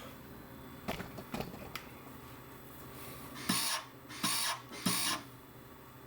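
MIG welder's wire feed run in three short bursts by pulling the gun trigger, each a hissing buzz of under half a second, to push the welding wire out through the gun, after a few faint clicks.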